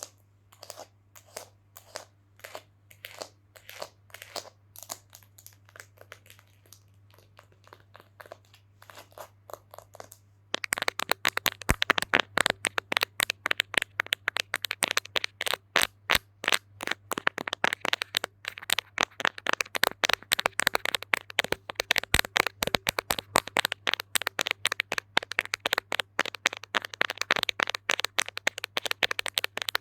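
ASMR knocking and tapping on a hard object: soft, evenly spaced taps about two a second, then about ten seconds in, much louder and faster knocking.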